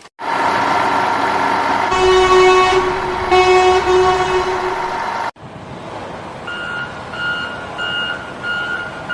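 A truck running with two long horn honks, then, after a sudden cut, a reversing alarm beeping about once every two-thirds of a second.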